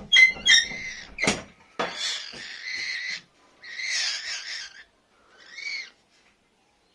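A rescued nestling bird giving harsh, rasping calls, four or five in a row with short gaps between them, and a sharp knock about a second in.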